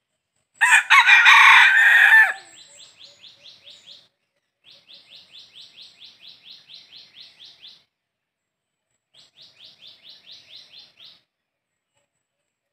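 A red junglefowl rooster crows once, a short crow of under two seconds. Three runs of faint, fast high chirps follow, about five to a second.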